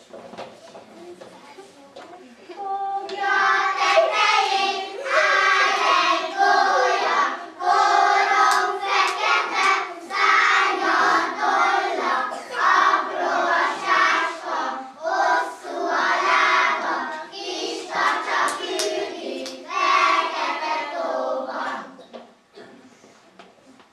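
A group of young children singing a song together, starting about three seconds in and stopping near the end.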